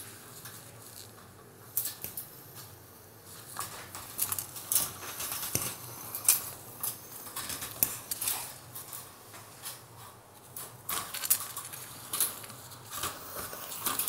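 A parrot's beak biting and working at the wire mesh of its cage, trying to cut through it: irregular sharp metallic clicks and rattles, sometimes several close together.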